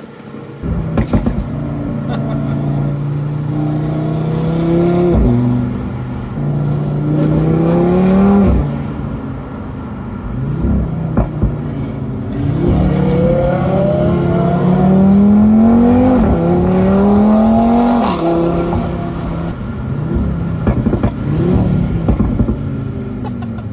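Performance car engine and exhaust under hard acceleration, run through the gears twice. The pitch climbs through each gear and drops sharply at each upshift, with a steadier, quieter stretch between the two runs.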